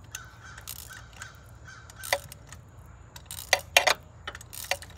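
A few sharp metallic clicks and clinks from a socket and extension being worked onto a spark plug in the engine bay, over a low steady hum.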